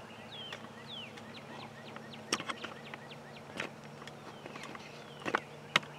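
A songbird singing a series of short whistles that slide downward in pitch, over a faint steady low hum. Several sharp clicks come in between, the loudest near the end.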